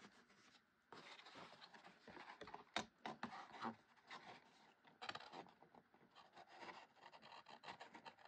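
Faint rustling and scraping of kraft cardstock being handled and creased by hand, in many short scratchy strokes, with one sharper click about three seconds in.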